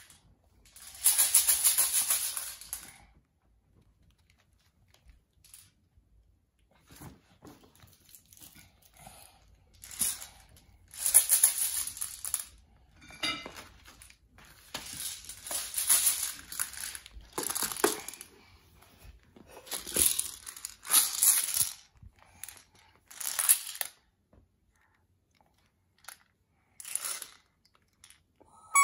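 Baby's clear plastic ball rattle with small beads inside being shaken: a bright, hissing rattle in repeated bursts of a second or two, with pauses between them.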